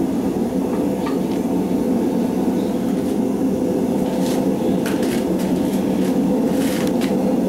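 Gas forge burners running with a steady rushing noise while wire cable heats inside for a forge weld, with a few faint clicks over it.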